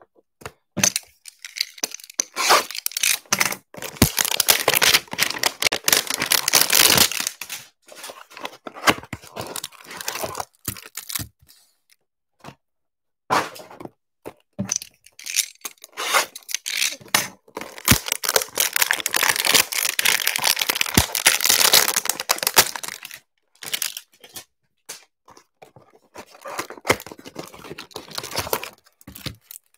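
Cardboard hanger boxes of trading cards being torn open by hand and the wrapped card packs pulled out: tearing and crinkling of cardboard and plastic wrap in two long spells with shorter bursts, with a few sharp knocks between.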